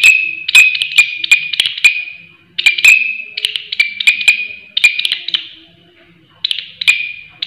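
Large green leaf-mimic katydid (walang kerik) stridulating: loud, harsh rasping chirps, each burst a quick run of scraping pulses over a high buzzing tone. There are four or so bursts with short pauses between them.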